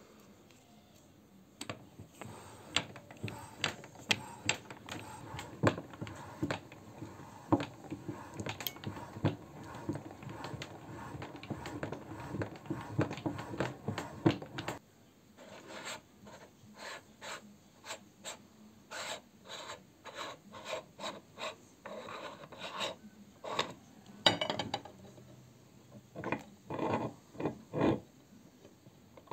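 Hand-cranked metal meat grinder turning as it grinds ice cream: its auger and cutter scrape and rub with clicks all through. About halfway through the dense grinding gives way to separate clicks and scrapes, about two a second.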